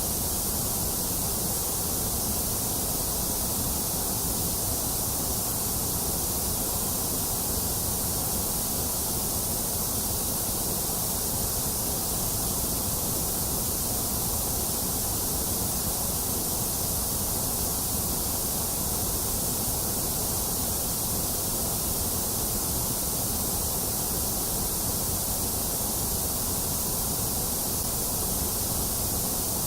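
Steady white noise: an unbroken hiss that holds the same level throughout.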